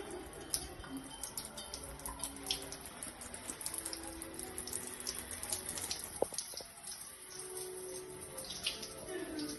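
Water running from a tub-and-shower faucet and splashing into the tub, a steady hiss with many small splashes. A single sharp knock about six seconds in.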